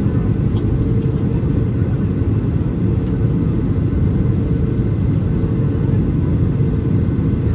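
Boeing 737-800 cabin noise heard from a seat over the wing on the approach: a steady, deep rumble of the CFM56 turbofans and the airflow, with a faint steady hum.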